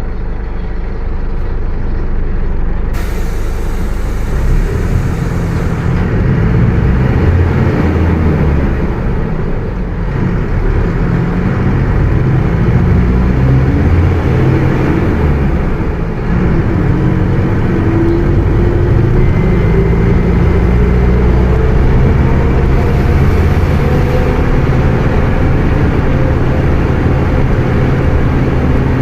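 Mercedes-Benz OF 1721 BlueTec 5 bus diesel engine pulling through the gears, its pitch climbing and dropping with each shift. Through the middle a rising whine from the drivetrain runs over the engine: the growling differential ('diferencial roncando').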